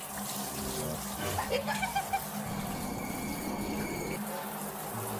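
Handheld shower head spraying a steady stream of water onto a cat's wet fur during a bath.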